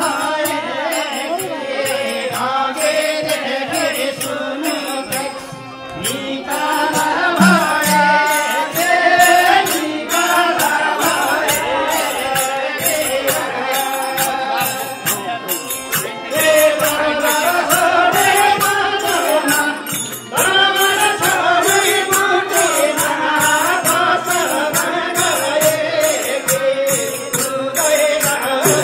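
Nepali bhajan: devotional singing over a steady, jingling percussion beat, played live for dancing.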